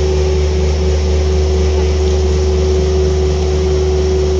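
A motor running steadily: a constant low hum with one unchanging tone above it.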